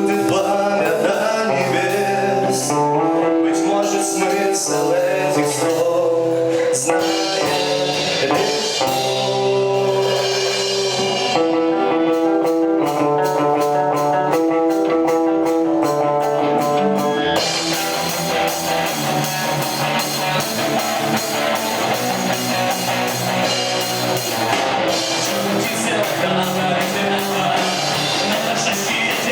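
Rock band playing live: guitar chords ring out over a light beat, then the drums and full band come in hard about halfway through.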